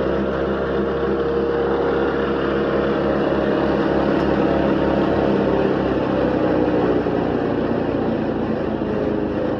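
Small Robin gasoline engine running steadily at speed, driving a Tornado wood chipper-shredder through a belt.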